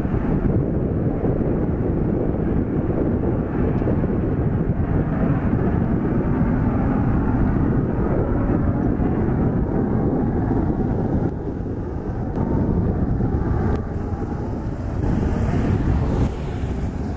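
Eurofighter Typhoon's twin EJ200 turbofans climbing away after takeoff: a steady, deep jet rumble that dips a little about eleven seconds in.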